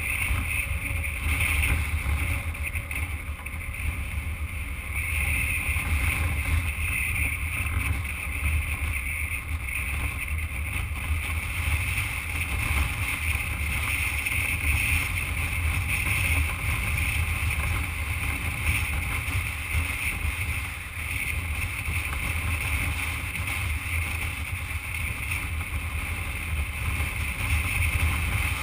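Motorcycle engine running steadily at cruising speed on a gravel road, with wind rushing over the microphone.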